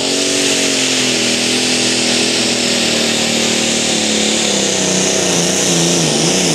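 Super stock pulling tractor's engine running hard at high revs with a strong hissing rush over it. Its pitch sinks slowly through the second half and wavers up and down near the end.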